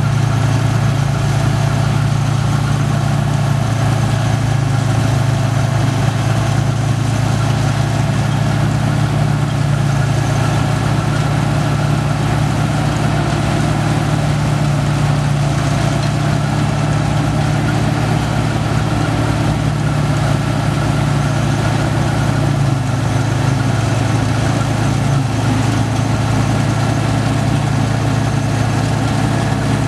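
Bizon Gigant combine harvester running steadily while cutting grain: its diesel engine and machinery make an even, unbroken low drone.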